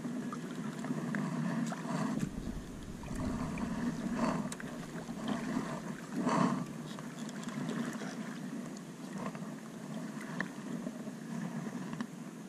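Kayak paddle strokes dipping and pulling through the water, a soft splash every second or two, with water lapping at the kayak's hull.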